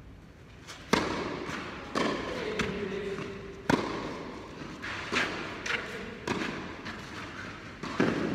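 Tennis rally: a serve, then the ball struck back and forth by rackets and bouncing, about eight sharp hits at uneven intervals. Each one echoes in a large indoor hall.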